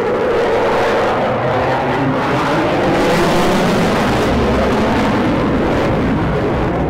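Eurofighter Typhoon's twin Eurojet EJ200 turbofan engines: loud, steady jet noise as the fighter flies its display.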